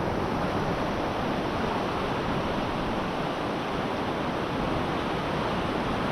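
Ocean surf washing in steadily, an even rush of breaking waves.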